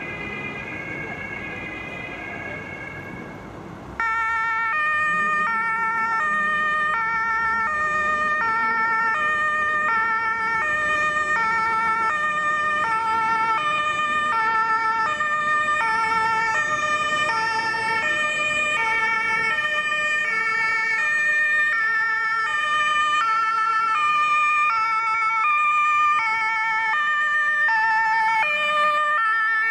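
German two-tone emergency vehicle siren (Martinshorn) sounding, its two pitches alternating steadily. It is faint at first and becomes suddenly much louder about four seconds in.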